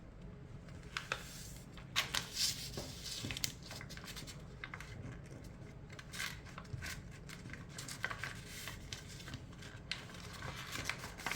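A sheet of paper being folded and creased by hand, with intermittent rustles and short scraping strokes as the folds are pressed flat.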